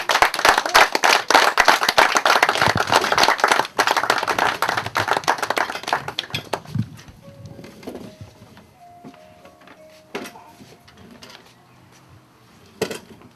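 An audience claps loudly, and the applause dies away after about six seconds. Faint music with held notes then begins.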